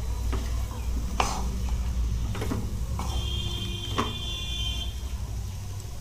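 Wooden spatula stirring a dry masala vegetable mix of cauliflower, potato and peas in a nonstick kadai, with a handful of light knocks and scrapes against the pan over a steady low hum. A faint high steady tone sounds for about two seconds in the middle.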